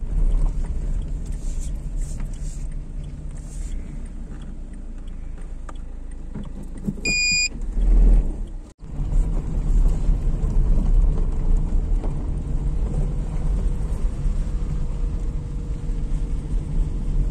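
Inside a moving car: steady engine and tyre rumble while driving along a country road. A short, high electronic beep sounds a little after seven seconds in, and the sound drops out abruptly near nine seconds before the rumble resumes.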